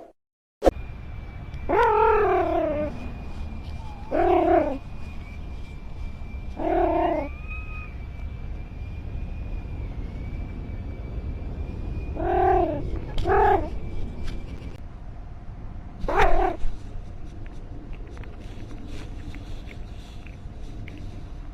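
A cat meowing six times, each meow falling in pitch: three spaced a couple of seconds apart, then two close together, then one more.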